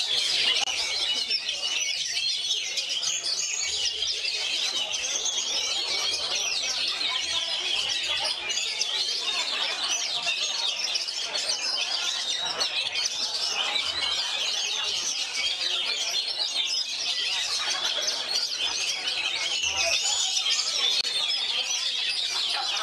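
Oriental magpie-robins (kacer) singing without a break: a dense, continuous run of fast, varied whistles and chirps.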